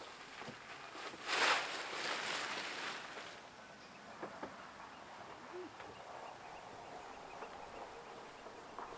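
A boat cover being handled and pulled off: a burst of rustling about a second in, fading over a couple of seconds, then scattered light clicks and knocks.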